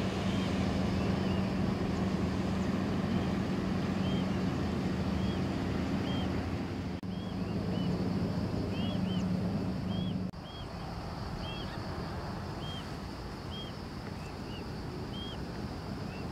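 Airbus A320 jet engines running at low thrust as the airliner taxis, a steady drone with a low hum. The drone drops in level about ten seconds in. Short high chirps repeat over it.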